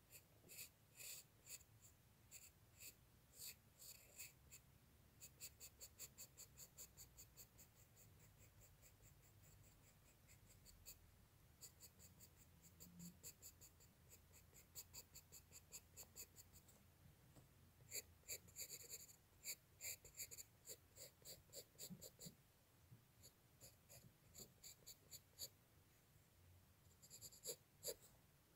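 Faint pencil scratching on paper in quick short hatching strokes, several a second, coming in runs with short pauses between.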